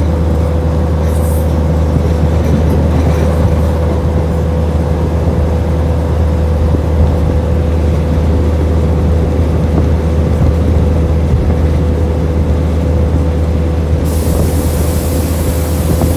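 Passenger train running along the track, heard from an open carriage window: a steady low rumble and rush of noise with a constant hum. About two seconds before the end a brighter hiss joins in.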